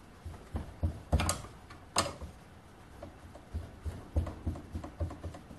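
Ring spanner on a screw-together KLG spark plug held in a bench vise, bumped sharply by hand to jar the tight thread loose. Two sharp metallic knocks about a second and two seconds in, with lighter clicks and taps of the spanner after them.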